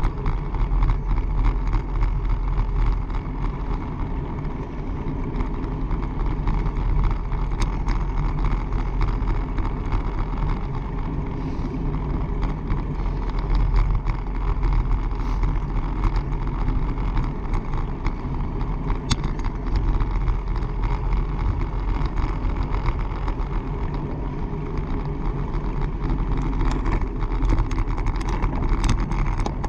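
Steady wind and road noise of a bicycle ridden at speed: a low rushing rumble with scattered small clicks and ticks.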